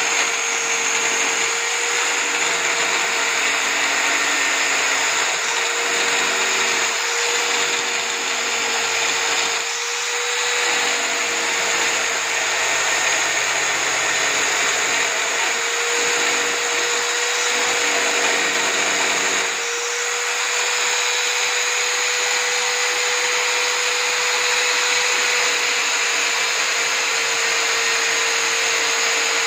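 Electric drill mounted upright as a homemade drum sander, running steadily with a constant motor whine while the edge of a cut-out wooden board is sanded against the sandpaper drum.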